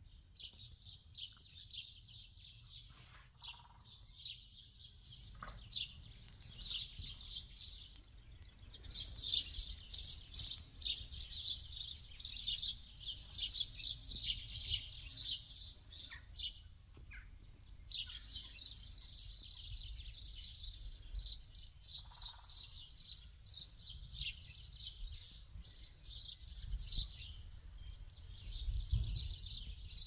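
Small songbirds chirping and singing: a dense run of short, high notes with brief pauses, over a low rumble.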